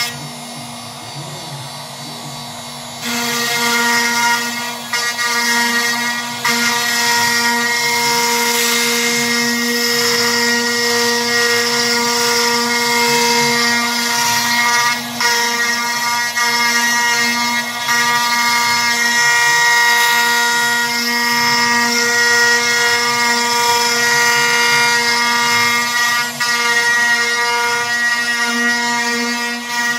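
CNC router spindle spinning a 6 mm two-flute bit at 14,000 rpm and milling plywood: a steady high whine with the hiss of the cut. It is quieter for about the first three seconds, then the cutting noise comes up and holds steady.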